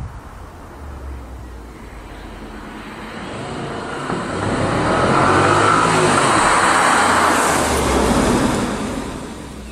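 Audi A6 Avant's 4.2-litre V8 on its stock exhaust, approaching and driving past: the engine note grows steadily louder, is loudest about halfway through, and fades away in the last second or so.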